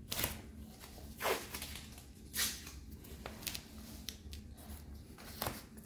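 Blue painter's tape being pulled and pressed onto the hull of an inflatable dinghy to outline a patch area: short, quiet rasps about a second apart.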